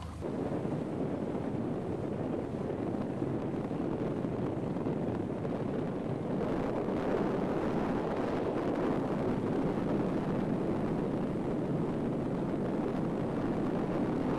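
Boat under way on open river water: a steady rushing of wind buffeting the microphone and water along the hull.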